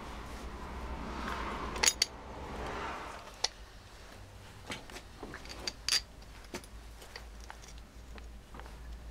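Metal parts of a Bosch starter motor clicking and clinking as they are fitted together by hand. A rubbing, scraping sound runs through the first three seconds, with two sharp clicks about two seconds in, then scattered lighter clicks.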